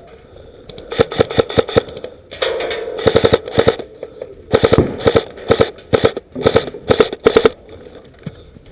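Airsoft rifle firing rapid strings of shots, close and loud: a short run about a second in, another at about two and a half seconds, and a longer string from about four and a half to seven and a half seconds.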